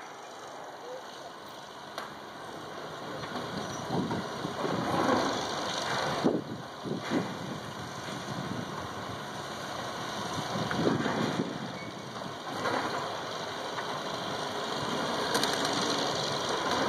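Heavy demolition machinery with its diesel engine running, and irregular louder surges of scraping and crunching throughout.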